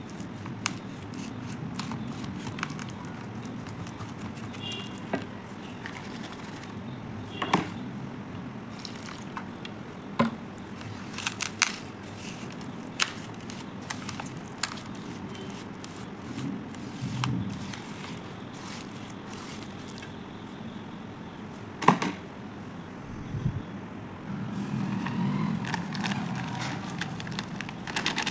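A brush scraping, stirring and pressing a thick, gritty paste of Holi colour powder and sand against a steel bowl, with irregular clicks and knocks on the metal, the sharpest about 22 seconds in.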